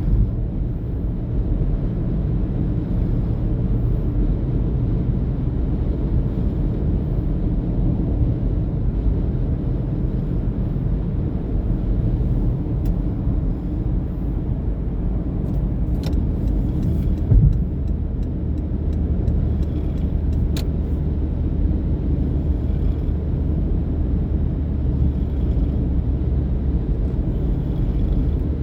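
Steady low rumble of a vehicle in motion, with a few faint clicks and a brief thump about 17 seconds in.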